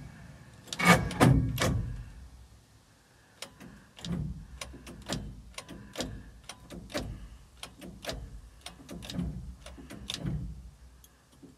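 Starter motor of a 1953 International R-180 pickup trying to crank the engine: a loud clunk about a second in, then a long run of uneven clicks and clunks without the engine starting. The starter is burning out and smoking.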